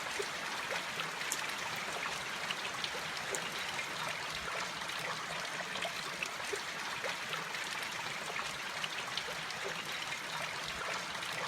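Steady rain with individual drops ticking and water trickling.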